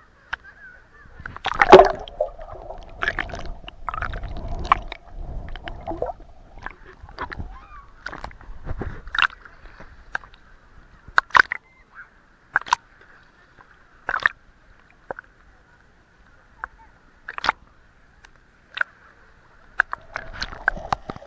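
Sea water sloshing and splashing, with many irregular sharp clicks and knocks. It is busiest in the first few seconds, then thins to scattered knocks.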